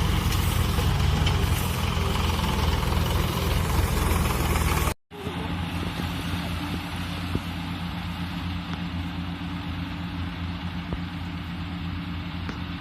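Daedong DSC-62G combine harvester's engine running steadily. About five seconds in, the sound cuts out for an instant and resumes a little quieter.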